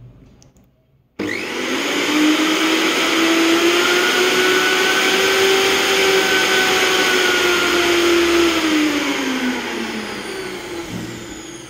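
Philips HL7756/03 mixer grinder's motor switched on with no jar fitted. It starts suddenly about a second in and runs at full speed with a steady, smooth whine. Near the end it is switched off, and the whine falls in pitch as the motor spins down.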